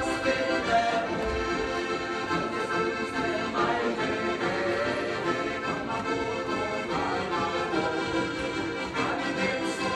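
Instrumental passage of a Slovenian folk-pop (narodnozabavna) tune, played live on two diatonic button accordions, with a small strummed guitar-like instrument under them.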